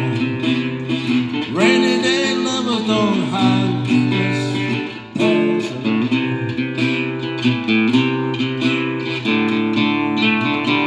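Acoustic guitar strummed and picked, playing the instrumental close of a solo folk song.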